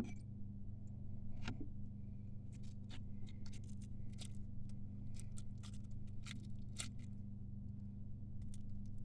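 Firm homemade slime being squeezed and pulled, giving faint, irregular small clicks and crackles over a steady low hum.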